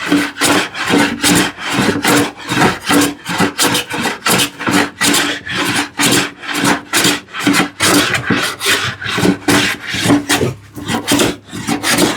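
Large hand plane taking quick, short strokes almost across the grain of a glued-up wooden panel, a rasping swish repeated about two to three times a second. Its long sole is skipping over the undulating surface.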